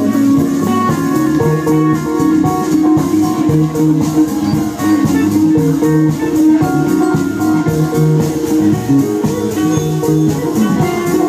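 Live band playing loud and continuous, a guitar leading over a drum kit.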